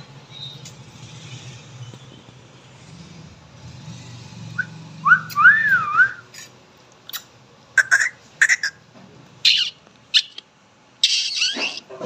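Indian ringneck parakeet calling: a wavering whistled note about five seconds in, then a run of short, sharp chirps and a longer harsh screech near the end, over a faint low hum.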